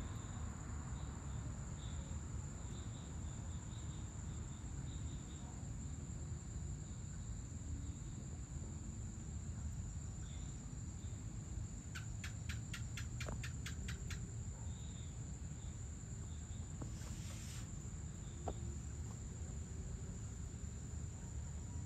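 Crickets trilling steadily: one continuous high trill with softer intermittent chirps, over a constant low rumble. About twelve seconds in there is a quick run of about nine ticks at roughly four a second, and a brief hiss follows a few seconds later.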